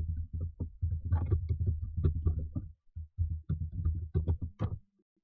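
Typing on a computer keyboard: a fast run of thuddy keystrokes, with a short pause about three seconds in, stopping shortly before the end.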